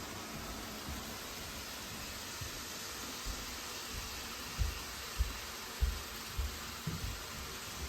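N scale model train running on the layout: a steady hiss, with a run of short low thumps about every half second in the second half.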